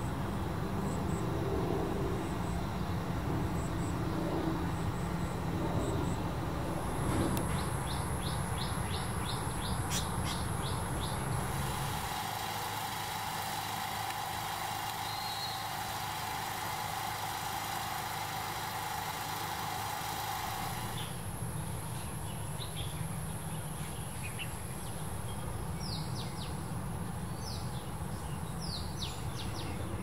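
Birds chirping in short quick notes over a steady hum of traffic and outdoor background noise; near the end, a few short downward-sliding calls.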